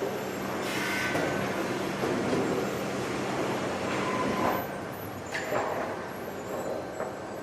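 Sawmill conveyors and machinery running steadily with a low hum and a haze of clatter, with a few short knocks near the end.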